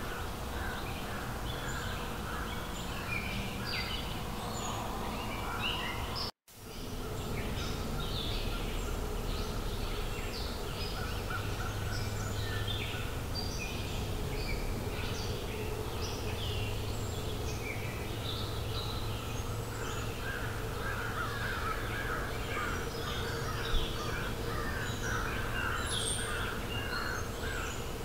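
Several forest birds chirping and calling over a steady background hiss, with a quick run of repeated notes in the later part. The sound drops out briefly about six seconds in.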